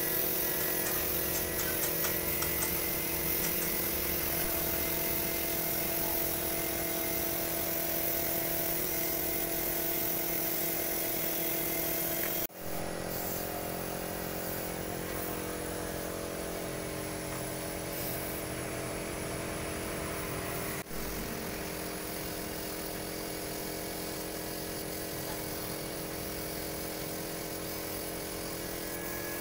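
Hiss of a compressed-air paint spray gun over the steady running hum of the air compressor that feeds it, dipping for an instant twice.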